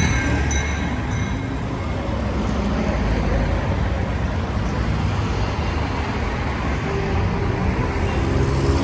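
Road traffic on a busy city street: a steady rumble of car engines and tyres passing close by.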